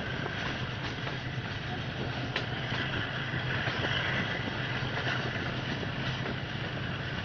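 A train running, heard from inside a passenger carriage: a steady noise with a few sharp clicks, the plainest about two and a half seconds in.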